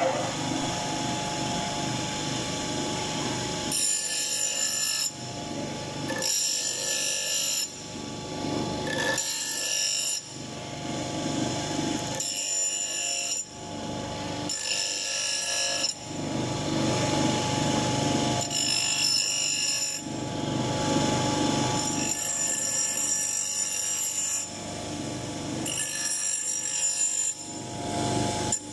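Bench grinder running with a steady motor hum while an iron hammer head is pressed against the grinding wheel in repeated passes of one to two seconds. Each pass gives a harsh, hissing grind of metal on the abrasive wheel, with short lifts between.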